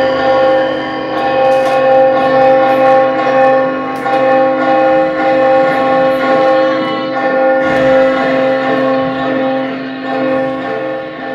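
A large bell ringing out, its tones held long with a slow, pulsing waver, easing off a little near the end.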